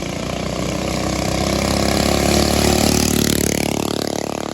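Modified Mega Moto 80 mini bike's engine passing by at speed. It grows louder, is loudest about two and a half seconds in, then drops in pitch as it goes past and away.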